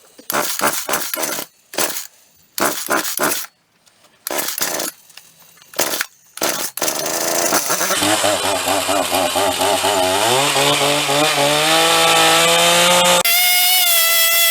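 Hitachi two-stroke chainsaw engine firing in short bursts with gaps for the first several seconds, then catching about seven seconds in and running steadily. Its speed rises around ten seconds in and jumps abruptly to a higher, faster pitch near the end.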